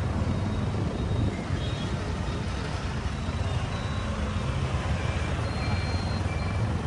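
Busy street traffic: the steady hum of car, motorcycle and three-wheeler engines close by, with people's voices in the street.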